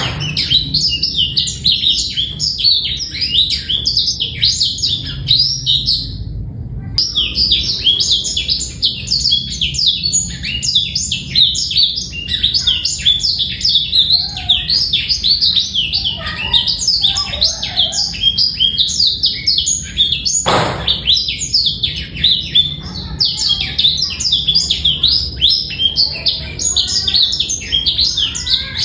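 Male blackthroat (black-throated canary) singing a long, rapid, continuous twittering song, with a short break about six seconds in.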